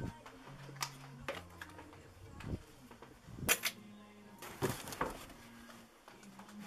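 Clicks, clacks and rattles of small objects and clothes hangers being handled. The loudest clatters come about halfway through, as hangers are pushed along a closet rail and a jacket is pulled off. Faint background music with a low, stepping bass line plays underneath.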